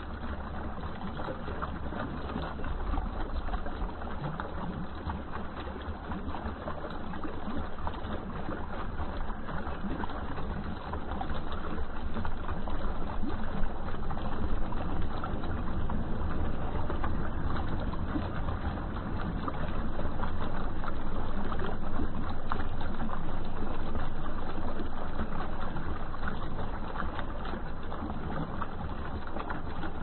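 Garden fountain water splashing steadily over rocks into a koi pond, a little louder from about the middle on.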